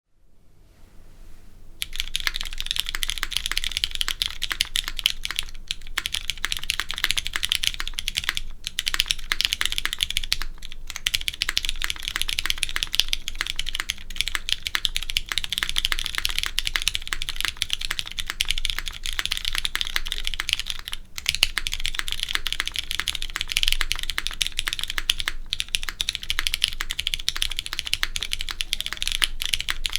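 Continuous fast typing on a Keycult 1/60 mechanical keyboard with Cherry MX2A Brown tactile switches mounted on an aluminum plate, a dense run of key clacks with a slightly sharp tone. The typing starts about two seconds in and breaks off for brief moments a few times.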